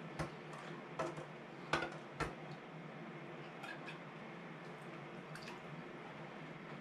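Light clicks and knocks of metal canning lids being set onto the rims of glass jars: four sharp ones in the first two and a half seconds, then a few fainter ticks. A low steady hum runs underneath.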